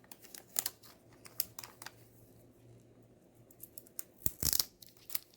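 Packaging being handled and pulled open by hand: scattered small crinkles and clicks, with one louder tearing rustle about four and a half seconds in.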